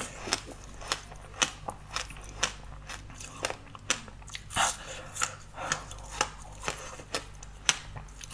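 Close-miked eating: a yellow seeded dessert being bitten and chewed, a run of sharp crackly clicks about two a second over a faint steady low hum.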